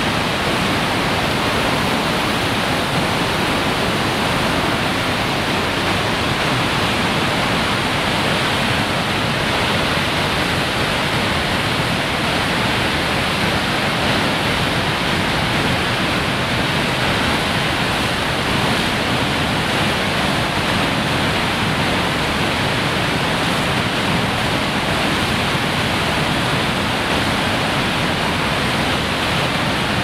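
Steady rushing of a large waterfall on the Genesee River, heard from the top of the falls.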